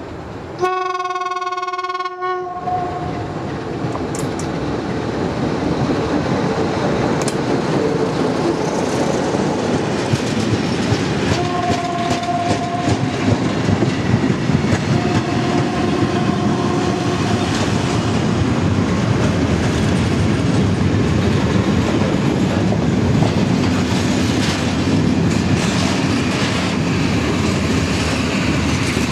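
ST43 diesel-electric freight locomotive sounds its horn once, about two seconds long, then passes, followed by a long freight train of tank cars and open wagons rolling by close up, the wheels clattering steadily over the rail joints.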